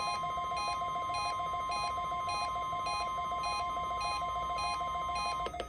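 NOAA Weather Radio 1050 Hz warning alarm tone sounding steadily for a weekly test, with a pulsing electronic beep about three times a second over it. The tone cuts off about five and a half seconds in, followed by a couple of clicks.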